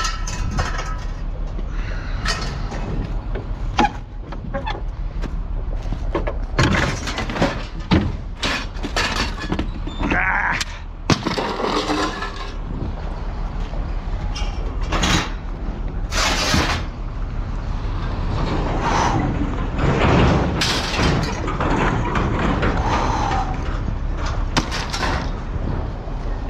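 Pieces of mixed scrap metal thrown onto a scrap pile: an irregular run of clanks, crashes and clatters, one after another.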